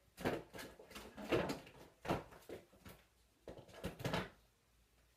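A series of irregular knocks and clatters from objects being handled, about eight over four seconds, stopping about a second before the end.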